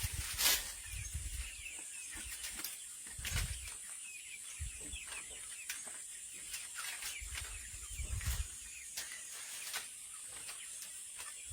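Small birds chirping, many short high calls one after another, over a steady high-pitched background drone. Scattered sharp clicks and a few low thumps of work or handling come through now and then.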